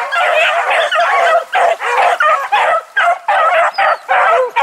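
A pack of beagles baying in full cry on the track of a cottontail rabbit, many voices overlapping in a continuous chorus with brief breaks.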